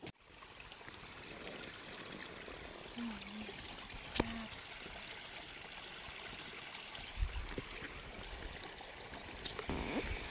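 Small mountain creek trickling over rocks, a steady rushing hiss, with a sharp click about four seconds in and a few low thumps near the end.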